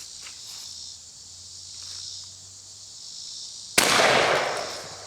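A single shot from a New England Firearms Pardner 20-gauge single-barrel shotgun, nearly four seconds in: a sharp blast that rings off over about a second. Insects chirr steadily in the background.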